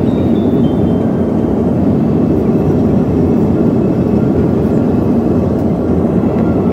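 Steady cabin noise of a jet airliner in flight, heard from inside the cabin: a constant low drone of engines and rushing air.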